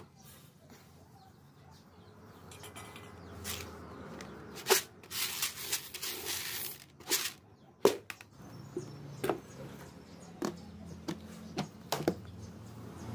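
Dry shelled corn kernels rustling and rattling as a hand stirs them in a plastic bucket, for about two seconds near the middle. Scattered knocks and clicks come before and after as the plastic bucket and its lid are handled, with a last knock near the end as the lid is pressed on.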